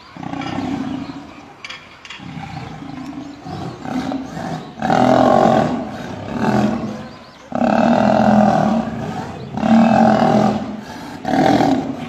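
Lions growling in a fight between lionesses and a male: a string of repeated growls, each lasting about a second, that grow much louder from about five seconds in.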